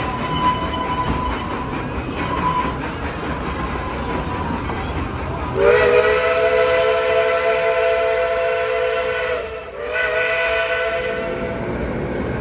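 Steam locomotive chime whistle sounding several notes at once: one long blast of about four seconds, then a short second blast, over the running noise of the train.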